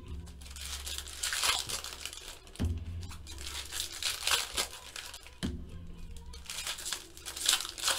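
Foil wrappers of baseball card packs being torn open and crinkled by hand, with two dull thumps as cards are set down on the table.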